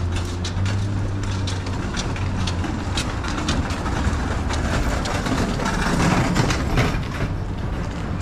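City street traffic noise: a steady low engine drone for the first couple of seconds, a run of sharp clicks and clatters, and a louder swell of noise about six seconds in as a vehicle goes by.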